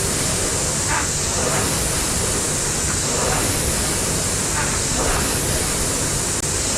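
Air-resistance rowing machine, a Concept2 knock-off, being rowed: its flywheel fan gives a steady rushing whoosh that swells briefly with each stroke.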